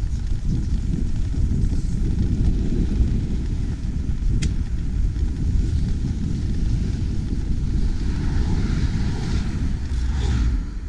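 Wind buffeting an action camera's microphone while cycling: a steady low rumble. There is a single click about four seconds in, and a hiss builds near the end.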